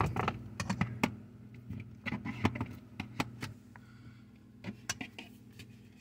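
Thin tool clicking, tapping and scraping against a refrigerator's plastic ceiling light cover while it is probed for a way to pry it off, a quick run of light clicks that thins out after about three and a half seconds. A steady low hum runs underneath.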